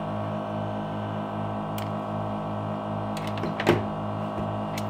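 Steady pulsing hum of an LCD separator machine's vacuum pump holding the phone screen down by suction, with a sharp click a bit over two thirds of the way in.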